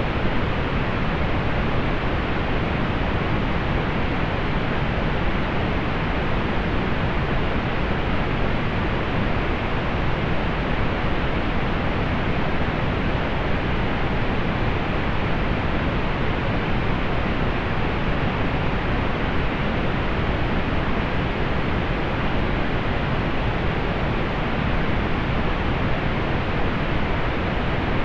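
Steady pink noise: an even, unchanging hiss with more weight in the low end, softening above the treble.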